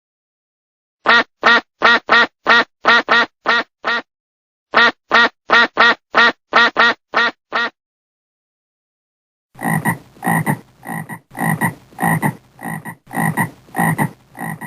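Frog croaking in quick runs of short, evenly spaced croaks: two runs of about ten croaks each, then after a short silence a longer run of harsher-sounding croaks.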